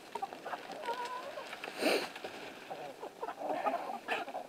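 A flock of backyard chickens clucking quietly, with scattered pecking and scratching in straw bedding and a short wavering call about a second in.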